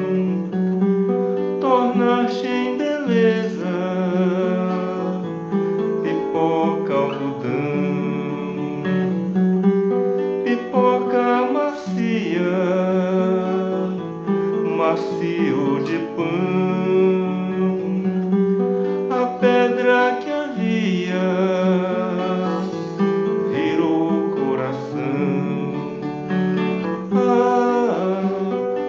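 A man singing while playing a nylon-string classical guitar with a capo on the neck, plucked notes and chords ringing under his voice.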